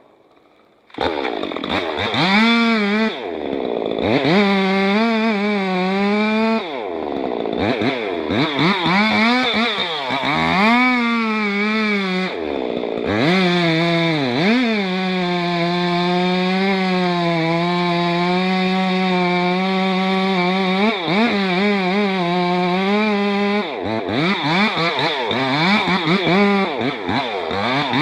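Two-stroke chainsaw engine starting about a second in, revving up and down several times, then held at a steady high speed for several seconds with a few brief dips near the end, as when cutting.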